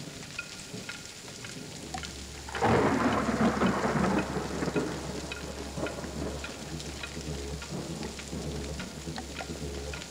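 Rain falling with scattered drips, and a roll of thunder that breaks suddenly about two and a half seconds in and slowly dies away over a steady low hum.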